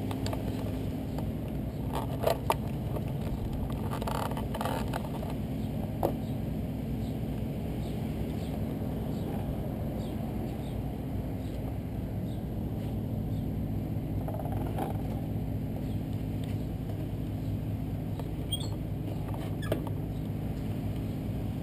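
Motorcycle engine idling steadily, with a few sharp clicks and knocks close to the microphone, the loudest about two seconds in.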